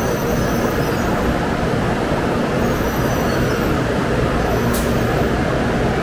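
N700-series Shinkansen train rolling slowly past the platform: a steady rumble with faint high whines at times, and a short hiss about four and a half seconds in.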